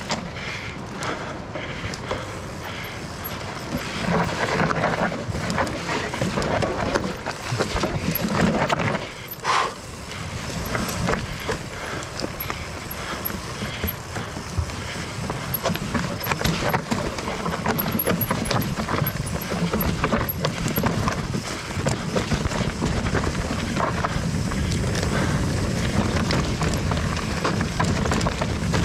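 Steel hardtail mountain bike ridden over rocky, blocky trail: a continuous clatter of tyres, chain and frame rattling over rock, with many sharp knocks and a short lull about ten seconds in.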